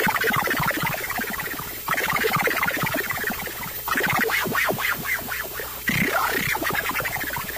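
Hand-made Arduino noise synthesizer playing a dense, crackling texture of clicks over a whistling tone, retriggering with a jump in level about every two seconds. About six seconds in, the tone swoops down and back up.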